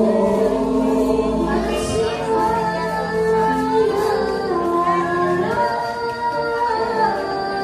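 Several voices singing together, holding long notes that step from pitch to pitch.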